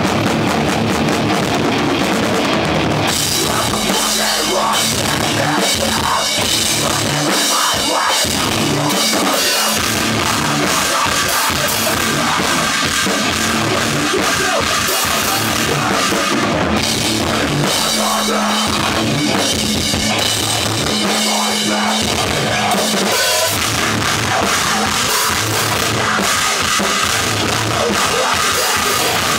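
Live rock band playing at full volume, heard from right beside the drum kit: drums and cymbals up front over electric guitars.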